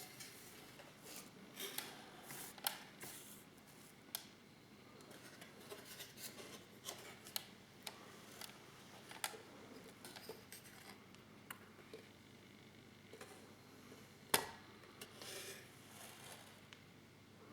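Handling noise: an irregular run of small clicks, taps and rustles, with one sharper knock about two-thirds of the way through.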